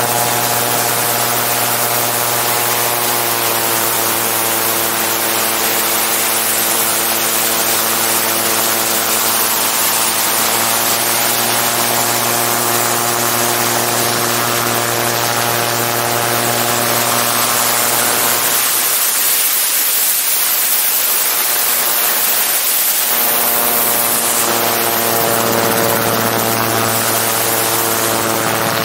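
Gyroplane's propeller engine running steadily under loud wind rush from the open-cockpit flight. About two-thirds of the way through, the engine tone drops away for about five seconds, leaving mostly wind noise, then comes back.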